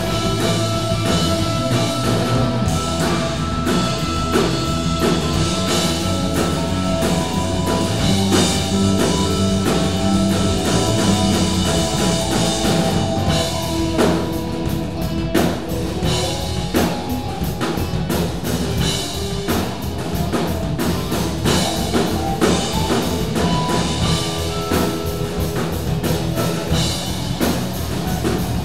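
Live improvised rock jam on drum kit, electric bass, two electric guitars and keyboard, with held guitar and keyboard notes over the drums.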